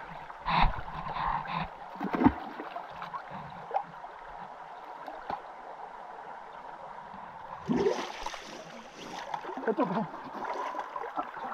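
Muddy creek water splashing and sloshing as people lying in a shallow pool shift their bodies and reach underwater with their arms. There are splashes in the first two seconds and again near the end, with running water heard in between.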